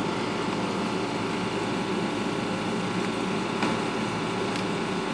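Steady mechanical hum and hiss of a running machine, with a couple of faint clicks near the end.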